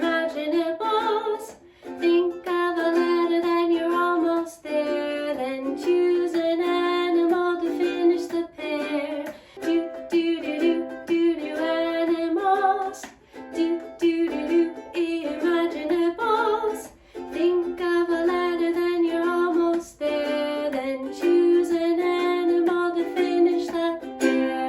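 Music: the closing part of a children's singalong song.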